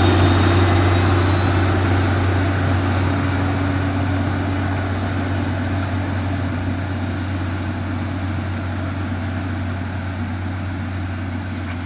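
Heavy construction machine's engine running with a steady low drone, slowly fading over the whole stretch.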